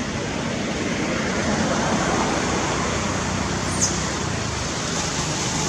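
Steady outdoor road traffic noise, with one brief high, falling squeak about four seconds in.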